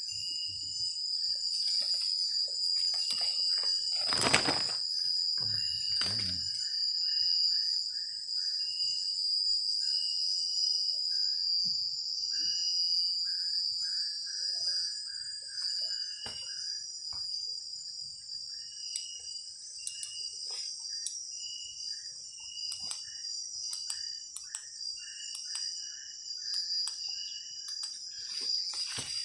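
Night insect chorus: crickets trilling steadily at a high pitch, with a short chirp repeating about once a second and runs of quick lower chirps. A loud knock comes about four seconds in, and a smaller one near six seconds.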